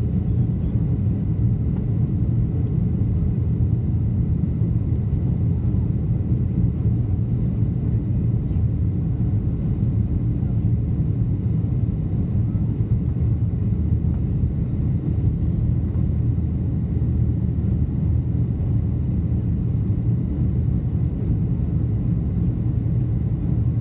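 Steady low rumble of jet engines and rushing air heard inside the cabin of a Boeing 737 climbing after takeoff.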